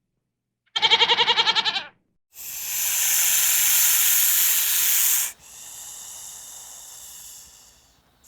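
A goat gives one short, quavering bleat. A loud hiss of about three seconds follows, then a fainter hiss that fades away.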